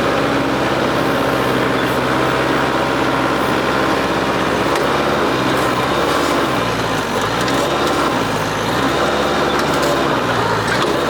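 New Holland WorkMaster 55 tractor's diesel engine running steadily under load, its pitch dipping and rising several times in the second half as it works.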